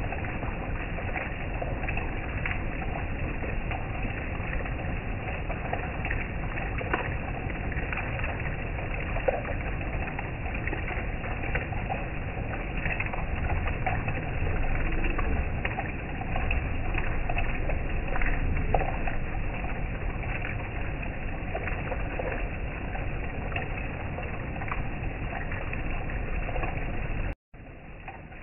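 Heavy rain pouring down: a steady hiss thick with small drop ticks. Near the end it cuts out for a moment and comes back quieter.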